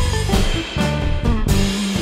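Funk jam band playing live: a Stratocaster-style electric guitar picking quick single-note lines over a drum kit.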